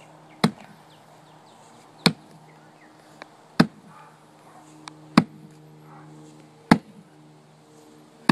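An 8-pound sledgehammer striking a tree stump in a steady series of heavy blows, about one every second and a half. Each blow is a sharp thud that dies away quickly. A low steady hum runs underneath.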